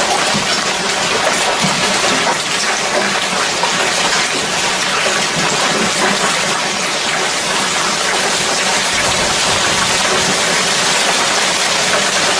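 Hailstorm: heavy rain and hail pelting down steadily, a dense patter of countless small hits.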